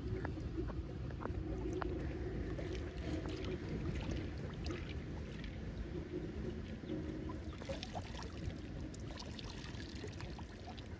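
Shallow ditch water sloshing and splashing as an open mussel shell full of beads is dipped and rinsed by hand, with many small clicks and drips over a low rumble.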